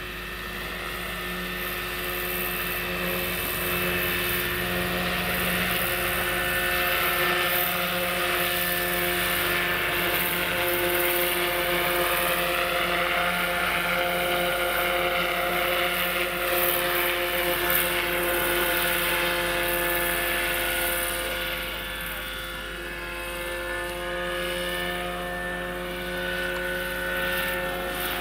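Electric RC scale BO-105 helicopter (Roban Superscale 800 with a Hacker 12S electric motor) in flight: a steady whine of several tones from motor and rotors, growing louder over the first few seconds. Its pitch bends briefly midway as it passes close by.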